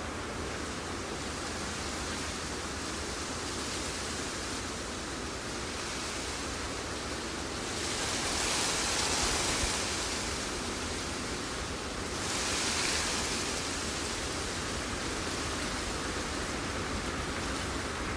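Steady rushing hiss with no tone or rhythm, swelling louder twice in its upper range, about eight and twelve seconds in.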